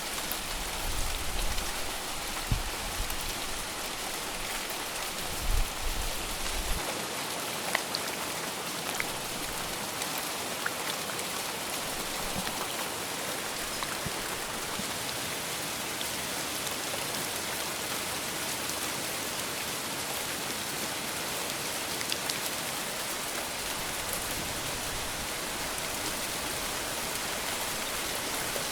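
Steady heavy rain, an even hiss with scattered sharper drop ticks. A few low thumps and a brief rumble come in the first several seconds.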